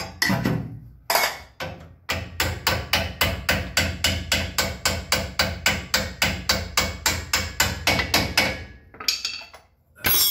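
Hammer blows driving a new spring shackle into place on a Model A Ford pickup. A few separate sharp strikes come first, then a fast, even run of about four a second for some six seconds, easing off near the end.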